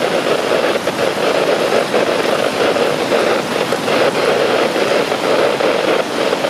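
Water rushing and churning into a lock chamber as the lock is flooded: a loud, steady rush of turbulent water.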